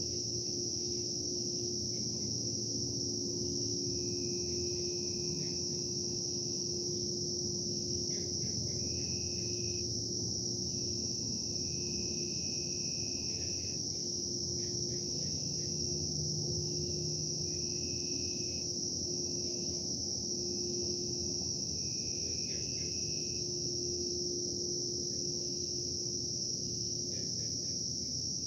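Steady, high-pitched insect chorus over a constant low industrial machinery hum with a steady droning tone; shorter, lower calls start and stop every few seconds.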